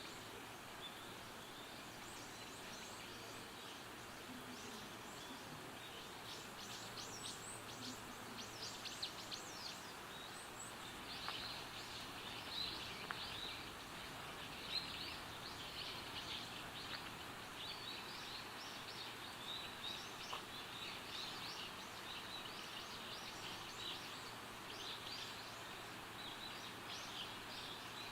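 Small birds chirping and twittering over a faint steady background hiss, the calls growing busier from about six seconds in.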